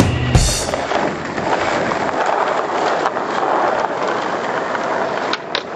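Skateboard wheels rolling on smooth concrete, a steady rumble, with a couple of sharp clacks of the board near the end.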